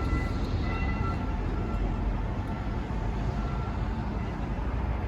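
Steady low rumble of vehicle traffic, with faint, brief high-pitched tones coming and going.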